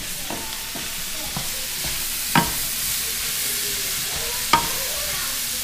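Brussels sprouts sizzling in a stainless steel skillet as they are stirred and turned with a wooden spatula. There is a steady frying hiss, with two sharp knocks of the spatula against the pan, about two seconds in and again near the end.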